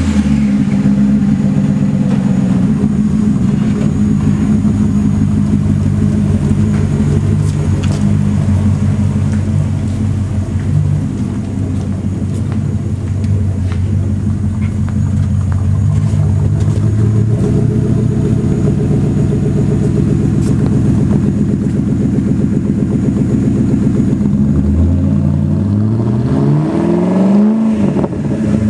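2001 Ford Crown Victoria Police Interceptor's 4.6-litre V8 idling steadily through an X-pipe and Borla S-type (Stinger) mufflers. Near the end the throttle is opened and the revs climb for a few seconds, then fall back to idle.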